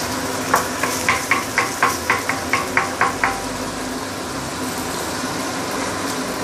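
Wooden spatula knocking against a stainless steel wok about a dozen times, roughly four a second, while scrambling egg, the metal ringing briefly with each stroke. Egg sizzling steadily in the wok over high heat underneath, and alone once the stirring stops just after three seconds in.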